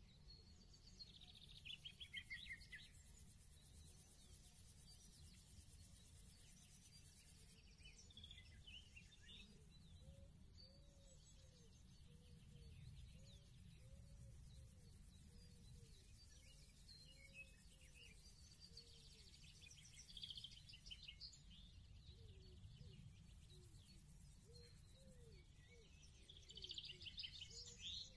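Faint distant birdsong: short high trills about two, nine, twenty and twenty-seven seconds in, and a string of low repeated notes from about ten seconds in, over a steady low background rumble.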